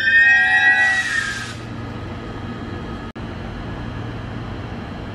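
Queensland Rail New Generation Rollingstock electric train with its traction motors whining in several gliding tones that fade out about one and a half seconds in. After that comes a steady low rumble and hum from the train.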